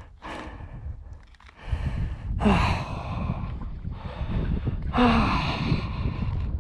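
A man breathing heavily and sighing close to the microphone, two of the sighs voiced with a falling pitch, over a low rumble.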